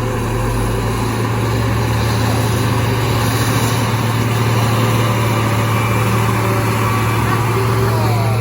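Diesel engines of heavy tanker trucks pulling up a steep grade: a loud, steady, deep engine drone with road noise.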